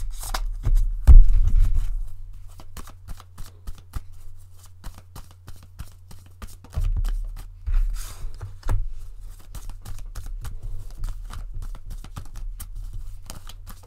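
Tarot cards being shuffled and handled: a long run of quick card snaps and rustles, with a louder thump about a second in, over a steady low hum.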